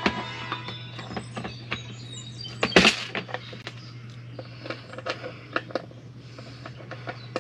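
Scattered clicks and knocks of smoker parts and fittings being handled during assembly, with a louder clatter about three seconds in, over a steady low hum.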